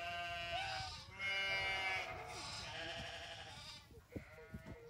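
Baby goats bleating: a long bleat that ends about a second in, a second one soon after, then fainter bleats.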